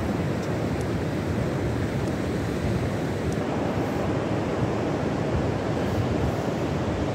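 Steady rush of surf breaking on a sandy beach, with wind buffeting the microphone.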